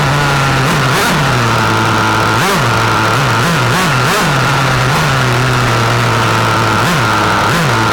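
Small nitro glow engine of a 1/8-scale RC racing car running at a steady speed, with several quick throttle blips that briefly lift and drop its pitch.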